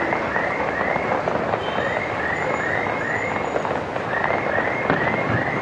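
Distant fireworks display: scattered bangs and pops over a steady wash of noise, with a high chirp repeated in quick runs of three to five, about three a second.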